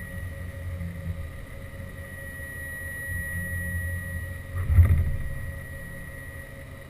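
Haas VF2 CNC vertical mill running: a steady high whine over a low, fluctuating machine hum, with a louder low surge about five seconds in.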